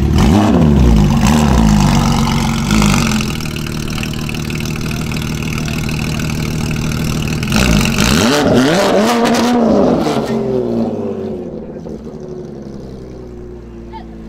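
Porsche 992 GT3 RS's 4.0-litre flat-six through a straight-piped Soul exhaust: several sharp revs in the first three seconds, then a steadier idle. About eight seconds in it revs hard again, the note rising and falling as the car pulls away, then fades as it drives off.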